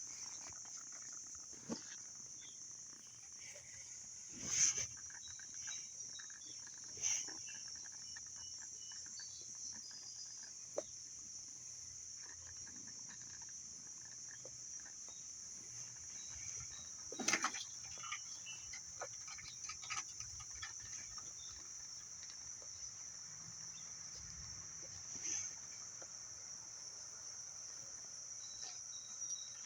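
A few short sounds from playing kittens, the loudest about four seconds in and again at about seventeen seconds, over a steady high-pitched hiss.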